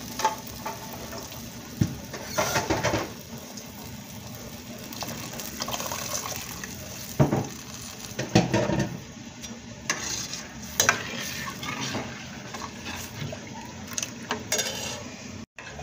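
A blue plastic spoon stirring rice in hot, foamy liquid in a steel pot, scraping and knocking against the pot every few seconds over a steady sizzle from the hot pan.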